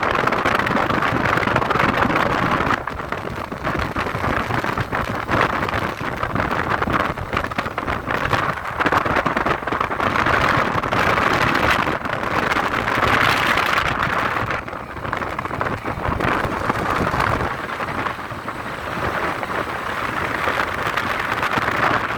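Steady rushing noise of travel along a road: wind on the microphone mixed with vehicle noise, rising and falling a little in loudness.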